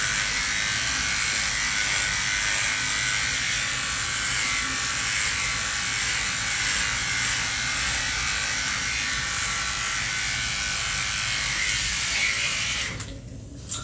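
Electric dog grooming clipper running steadily while clipping a Schnauzer's coat. It cuts off suddenly near the end.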